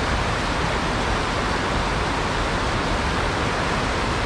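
Fast mountain stream rushing over rocks in whitewater, a steady, unbroken rush.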